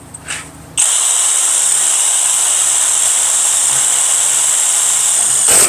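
Kobalt 24V brushless impact driver running in self-tap mode, driving a self-drilling screw through 20-gauge sheet metal. A steady high-pitched whine starts about a second in, holds for nearly five seconds and cuts off suddenly near the end.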